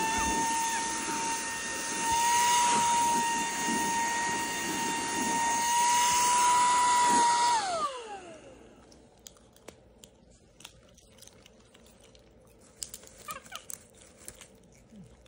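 Small cordless handheld crumb vacuum running with a steady high whine, then switched off about seven and a half seconds in, its pitch falling away as the motor spins down. After that only faint crunching and clicks of popcorn being eaten.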